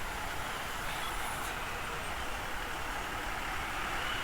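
Steady road noise of a motorcycle ride through highway traffic: an even rush of engine, tyres and traffic with no distinct events.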